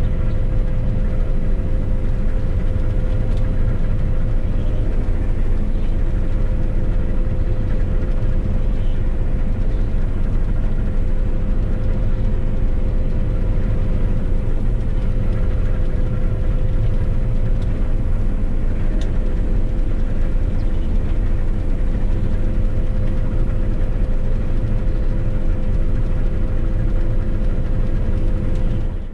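Claas Lexion 670 combine harvester running steadily: an even, deep engine rumble with a constant whine from the machinery above it.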